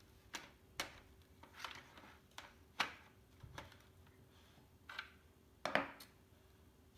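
Light clicks and knocks of Steyr AUG parts (stock and barrel-retaining block) being handled and turned over, about eight separate taps, the loudest just before three and six seconds in.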